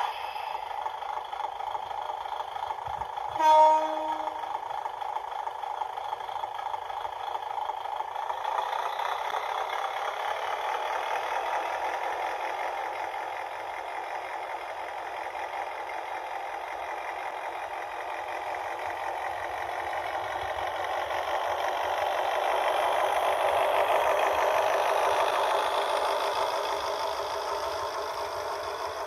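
HO-scale model diesel railcar rolling along KATO Unitrack sectional track and over a handmade crossing, a steady whir of motor and wheels that grows louder in the last third as it comes close. A short horn-like toot sounds about three and a half seconds in.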